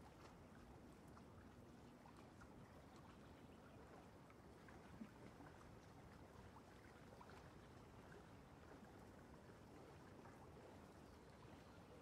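Near silence: faint soft scratches of a small mop brush dabbing paint onto canvas over a low steady hiss, with one slightly louder tick about five seconds in.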